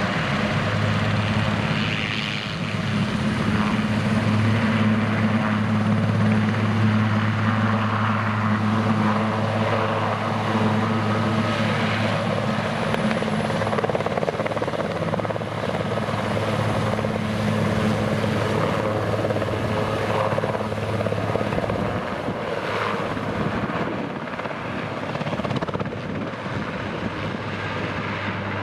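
Super Puma-family military helicopter taking off: turbines and rotor making a loud, steady low drone as it lifts from the pad and climbs away. The drone thins out near the end as it departs.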